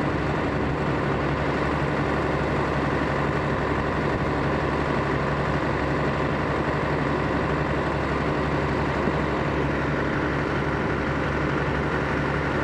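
Deutz-Fahr combine harvester's engine and machinery running steadily at a standstill, an even, unchanging drone.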